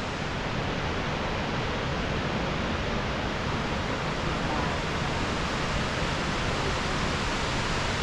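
Fukuroda Falls, a large tiered waterfall, rushing in a steady, unbroken wash of falling water.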